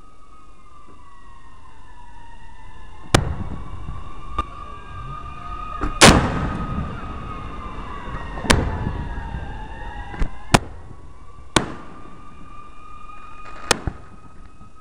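Firework bangs, about nine sharp reports with the loudest about six seconds in. Behind them, sirens wail with a slow rise and fall.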